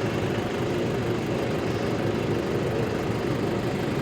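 Toyota Hiace 2.5 D-4D diesel engine idling steadily with a fast, even pulse. The engine has a vibration and knocking problem that a replaced control box has not cured.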